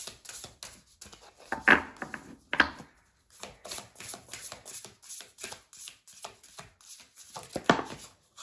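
A deck of oracle cards being shuffled by hand: a run of quick rustling card strokes, with a few louder clicks about two seconds in and again near the end.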